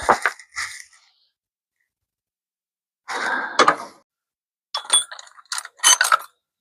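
Metal tools and parts clinking and clattering as they are handled, in three short bursts with silence between.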